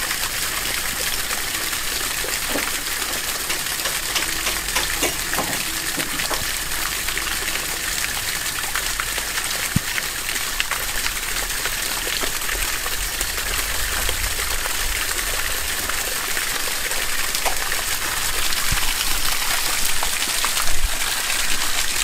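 Strong water jet spraying from a pipe outlet and splashing onto leafy plants, a steady gushing hiss that gets a little louder in the last few seconds.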